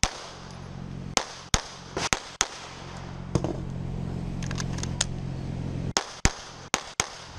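Semi-automatic pistol fired in quick pairs of shots, about ten sharp cracks in all, with short pauses between the strings.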